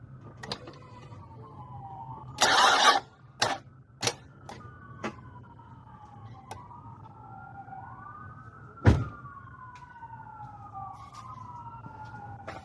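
A wailing emergency-vehicle siren rising and falling over and over, with scattered sharp clicks and knocks, a short rush of noise about two and a half seconds in, and a loud knock about nine seconds in.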